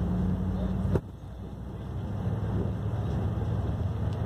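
Bus engine and road noise heard from inside the cabin: a steady low hum that cuts off sharply about a second in, then builds back up over the next second or so.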